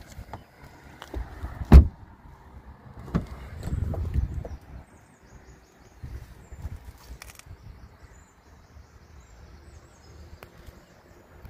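A car door is shut with one sharp thud about two seconds in, followed by a lower rumble of handling noise and scattered small clicks and knocks. Faint birdsong chirps in the background.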